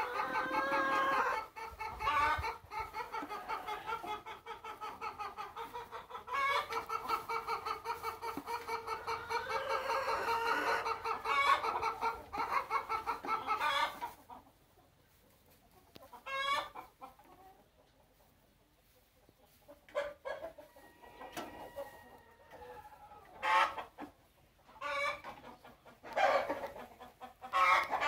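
A flock of domestic hens clucking, a dense run of overlapping calls for about the first half, then quieter, with single clucks and short calls every few seconds.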